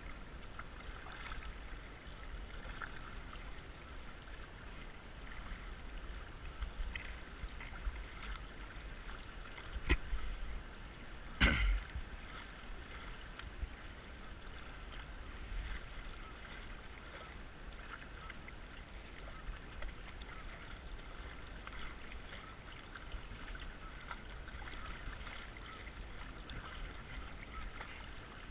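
Kayak paddle strokes dipping and splashing in fast-flowing creek water over a steady wash of current. Two sharp knocks come a second and a half apart near the middle, the second the loudest.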